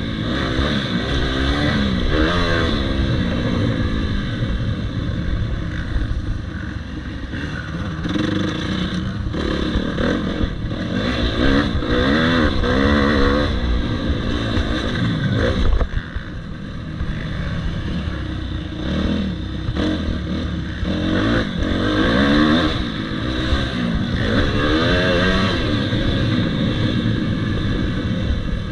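Motocross bike engine revving up and falling off again and again as it is ridden on a dirt track, its pitch rising and falling through throttle and gear changes. The throttle shuts off suddenly about halfway through.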